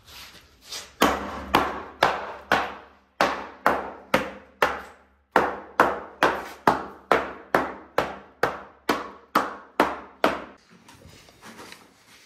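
A perforated metal plate on a hand block struck again and again onto a slab of pink foam board to stamp a texture into it. The blows are sharp and come about two to three a second, with two short pauses, and stop near the end.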